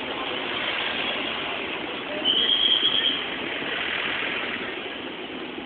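Steady street din of traffic and a crowd, recorded on a phone, with a brief high steady tone about two seconds in that is the loudest moment.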